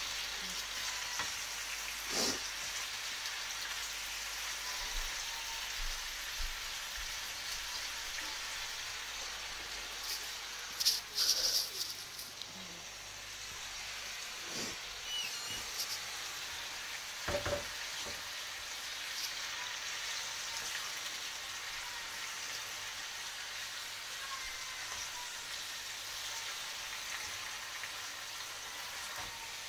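Sliced zucchini sizzling steadily as it fries in oil in a pan. A few sharp knocks from a wooden spatula against the pan break in, with a louder clattering cluster near the middle.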